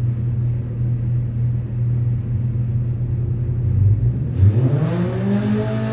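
Polaris RZR Pro R four-cylinder engine with an EVO header and muffler idling steadily at about 1,300 rpm on an engine dyno, then revving up about four seconds in as a dyno run begins. Its pitch rises and settles higher.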